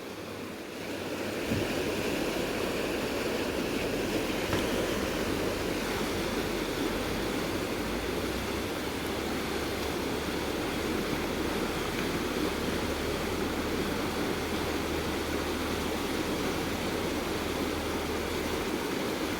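Fast river current rushing, a steady wash of water noise that comes up about a second in and holds.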